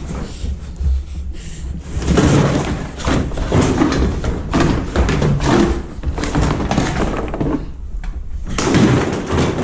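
Repeated knocks, thumps and clatter of parts being handled and pulled off a car body during a teardown, over a steady low rumble.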